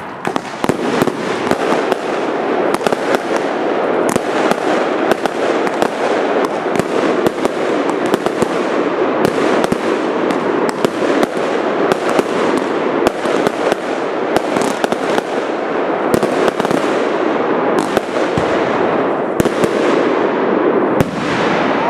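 Fireworks going off without a break: a dense, continuous crackle with many sharp bangs scattered through it.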